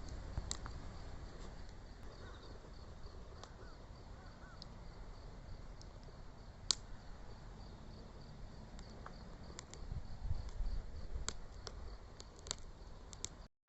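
Wood bonfire crackling with scattered sharp pops, over a steady pulsing chirp of insects and a few faint bird calls.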